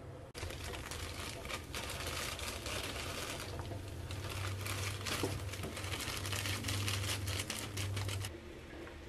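Plastic instant-noodle packet crinkling and rustling in the hand as the noodles are shaken out of it into a pot, stopping sharply near the end. A steady low hum runs underneath.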